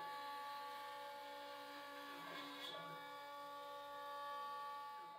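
CNC router cutting walnut on a roughing pass with a 1/4-inch bit: the spindle runs with a steady whine, with brief rising and falling tones as the cutting head moves.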